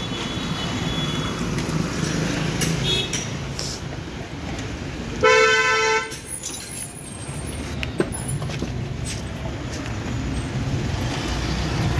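Traffic noise, with a vehicle horn honking once for just under a second about five seconds in.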